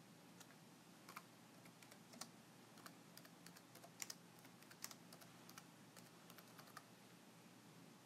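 Faint, irregular clicks and taps, typing-like, over quiet room tone, with a sharper click near the end.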